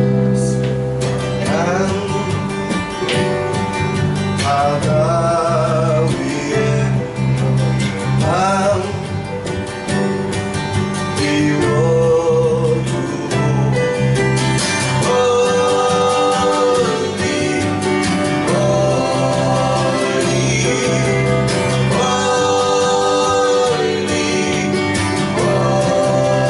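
A voice singing a song to guitar accompaniment, with sustained low notes underneath.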